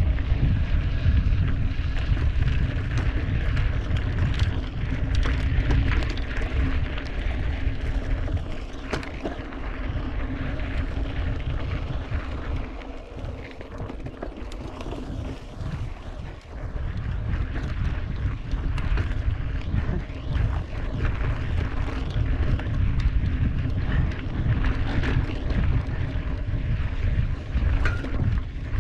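Wind buffeting the microphone over the rumble of mountain bike tyres rolling on a dirt track, with frequent clicks and rattles as the bike goes over bumps. It eases off for a few seconds around the middle.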